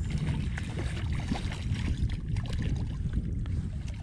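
Steady low rumble of wind and water around a fishing boat, with scattered faint clicks and taps.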